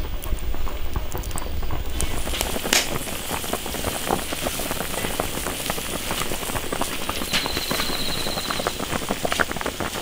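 Wood fire crackling with a low rumble, then beef tendon in spiced braising liquid at a rolling boil in an iron wok, dense bubbling and popping.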